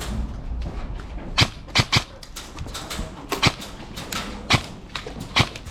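Airsoft guns firing single shots: about five sharp cracks at uneven intervals.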